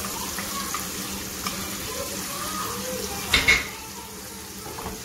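Chicken karahi sizzling in oil in a nonstick frying pan as it is stirred with a wooden spatula, with two quick sharp clatters a little over three seconds in.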